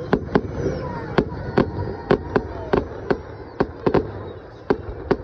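Fireworks going off: a quick, irregular string of sharp bangs, about three a second.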